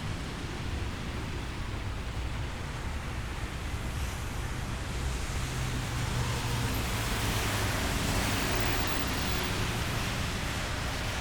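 Road traffic: a steady low rumble of engines and tyre hiss, swelling about halfway through as a vehicle passes close and then easing off.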